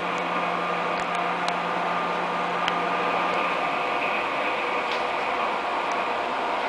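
Cabin noise inside a Korail 311000-series electric train coming to a stop at a platform: a steady hum and hiss with faint whining tones and a few light clicks. A low hum drops out about three and a half seconds in as the train halts.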